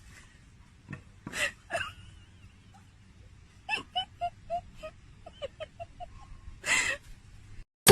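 Dog whimpering: runs of short high-pitched whines, about four or five a second, with a few breathy puffs between them, the longest near the end.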